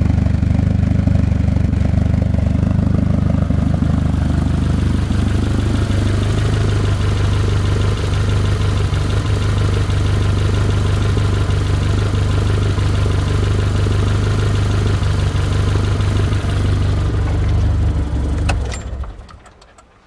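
Nissan CA18ET turbocharged 1.8-litre four-cylinder engine idling steadily. A click comes about a second and a half before the end, and the engine winds down and stops.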